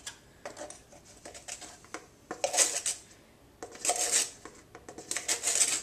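A small metal measuring spoon scraping and scooping bicarbonate of soda powder in a plastic tub: light clicks and taps, then three short scrapes about a second and a half apart.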